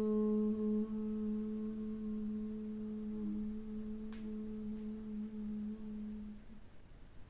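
A woman humming a long, steady 'mmm' on one low pitch: the slow exhalation of Bhramari (bee-breath) pranayama, meant to sound like a bee's buzz. It fades and stops about six and a half seconds in.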